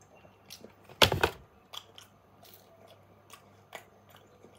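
Close-up chewing of a slice of pepperoni pizza: soft, wet mouth clicks and smacks, with one louder, noisier burst about a second in.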